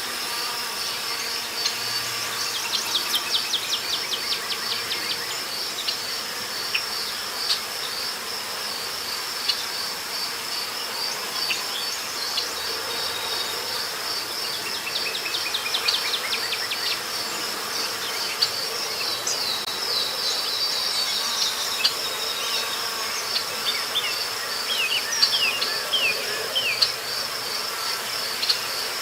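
Forest ambience: insects trilling steadily in a high, fast-pulsing band, with several runs of quick, falling chirps from birds breaking in over it.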